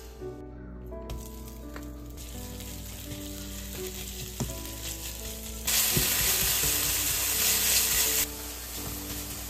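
Ground pork frying in a hot nonstick frying pan and being stirred with a spatula, with a few light taps of the spatula. The sizzle turns much louder about six seconds in and drops back after about two and a half seconds.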